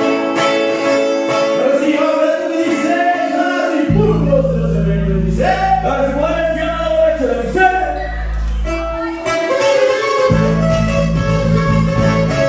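Sierreño band music: strummed acoustic guitars with singing over them. A deep bass part comes in about four seconds in, drops out for about a second near nine seconds, then returns.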